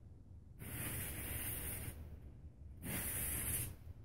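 Torch lighter jet hissing in two bursts of about a second each, held to a sulfur and potassium chlorate powder mixture that is not catching.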